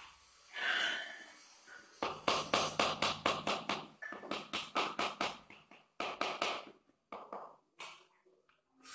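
Marble inlay pieces being tapped down into wet mortar with the handle end of a hammer: quick runs of light, sharp taps, about six a second, broken by short pauses, starting about two seconds in and thinning out near the end.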